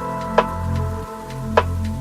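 Background ambient music: sharp click-like beats a little over half a second apart over held synth notes and a pulsing bass.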